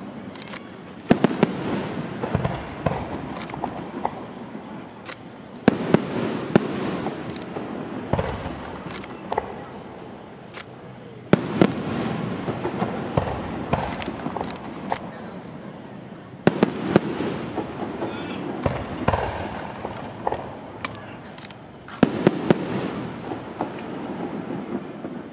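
Aerial firework shells bursting overhead: five sharp bangs about five seconds apart, each followed by a rumbling, crackling tail of scattered pops.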